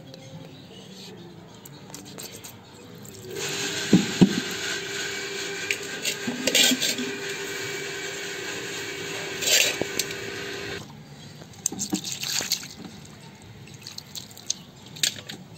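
Water running steadily for about seven seconds, starting a few seconds in and stopping abruptly, as raw fish pieces are rinsed by hand. Scattered knocks and clatters of the fish and container being handled around it.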